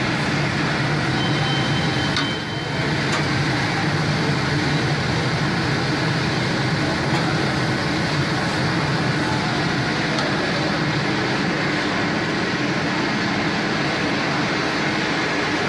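Continuous stainless-steel onion frying machine running: a loud, steady machinery hum and rush, with a brief faint high tone about a second in.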